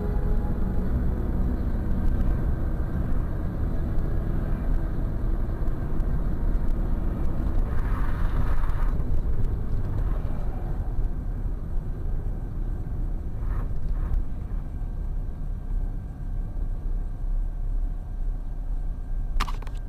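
Steady engine and tyre rumble heard from inside a car's cabin at highway speed, with a brief louder rush about eight seconds in as an oncoming truck passes close by, and a few faint clicks later on.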